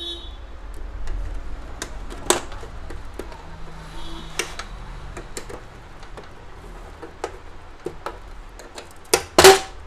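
Scattered clicks and light knocks from the plastic covers and parts of an HP LaserJet P1007 laser printer being unclipped and handled during disassembly, with a louder knock near the end.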